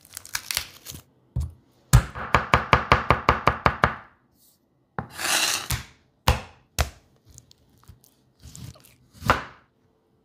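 Kitchen knife chopping on a wooden cutting board. First comes a brief crackle of garlic skin being peeled, then a fast, even run of about a dozen chops, some six or seven a second, mincing garlic. Near the end there is a slicing swish and a few single cuts through raw chicken breast.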